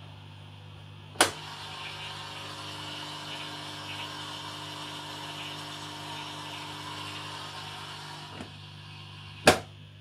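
Indesit dishwasher door unlatching with a sharp click about a second in, then pushed shut with a louder click near the end. A steady motor hum runs between the two clicks.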